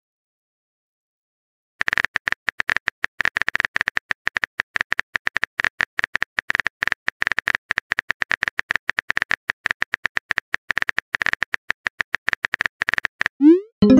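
Texting-app keyboard typing sound effect: rapid clicks, several a second, starting about two seconds in as a message is typed out. A short rising whoosh near the end marks the message being sent.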